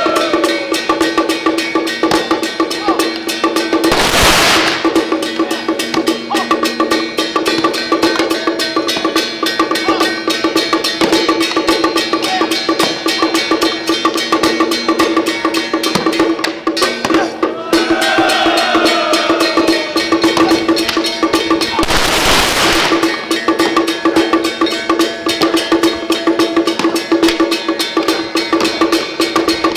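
Song Jiang Zhen percussion accompaniment: drum, gong and cymbals beaten in a fast, unbroken rhythm, with a steady ringing tone under the strikes. Two loud crashes about a second long come about four seconds in and again about twenty-two seconds in.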